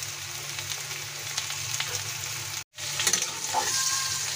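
Teasel gourd and potato pieces sizzling steadily in hot oil in a karahi, with many small crackles. The sound cuts out for a moment about two-thirds through, then a spoon stirs and scrapes through the pieces.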